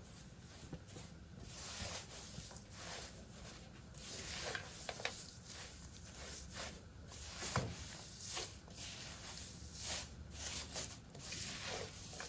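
Wooden spatula stirring and tossing dry toasted vermicelli and sliced almonds in a nonstick wok: irregular scraping, rustling strokes against the pan, roughly one a second.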